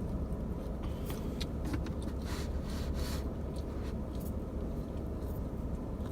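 Sauce being scraped off a slice of pizza: short scraping and rustling handling sounds with scattered light clicks, over a steady low rumble.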